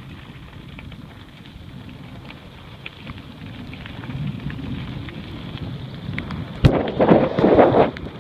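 Mountain bike rolling fast downhill on a gravel road: a low rumble of tyres on gravel and wind on the microphone, with scattered small clicks and rattles. Near the end there is a sharp knock, then about a second of loud, rough buffeting.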